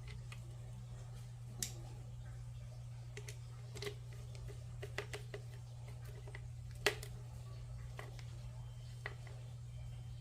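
Scattered light clicks and taps, about seven over ten seconds, from washing-machine parts being handled and set in place, over a steady low hum.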